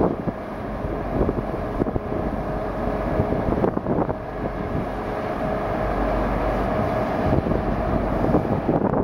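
River towboat's diesel engines running steadily as it pulls away, with wind buffeting the microphone.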